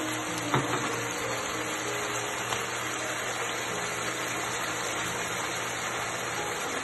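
Chicken and snap peas sizzling steadily in a hot frying pan as soy sauce is poured over them, with a sharp click about half a second in. Faint background music plays underneath.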